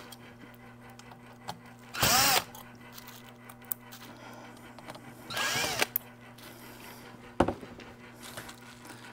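18V cordless drill/driver backing out small bracket screws in two short bursts, about two seconds in and about five seconds in, its motor spinning up and winding down each time. A single sharp knock comes near the end.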